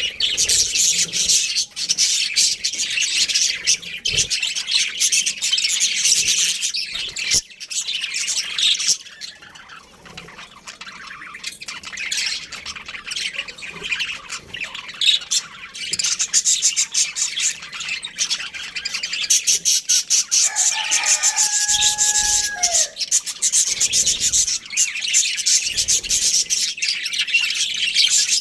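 A pair of budgerigars chirping and chattering continuously in a dense, high warble. The chatter dips briefly about ten seconds in, and a single short whistled note is held a little past the middle.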